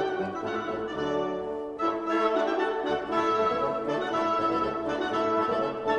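Background instrumental music: sustained notes that change pitch in steps, with no natural sound from the scene.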